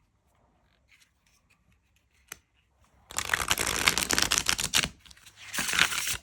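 Tarot cards being shuffled: a few faint card taps, then two runs of rapid crackling flicks from about three seconds in. The first run lasts nearly two seconds and the second is shorter, near the end.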